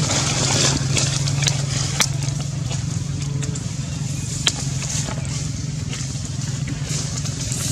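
A steady low motor hum under a hiss, with a few sharp clicks.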